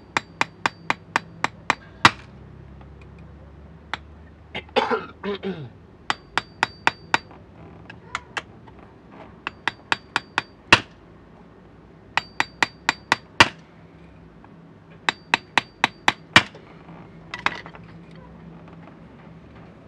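Light, rapid metallic taps with a small tool while a part of a Mercedes-Benz blower motor is tapped into place. The taps come in five runs of about eight, each run ending with a harder tap, and there is a short falling-pitched sound about five seconds in.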